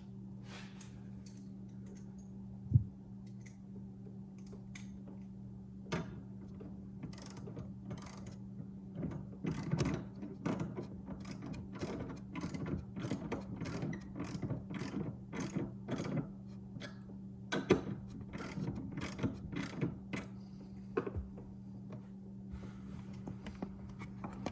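Hand ratchet wrench clicking in quick runs as a bolt is turned, with a single sharp knock about three seconds in. A steady low hum runs underneath.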